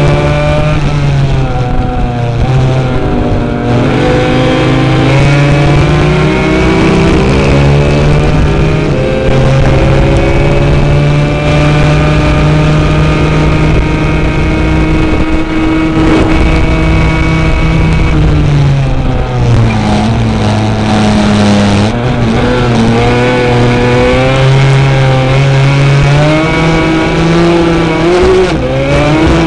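Yamaha Banshee racing quad's two-stroke 350 twin engine at racing speed, its revs climbing and falling through gear changes. The pitch dips about two-thirds of the way through, then pulls up again.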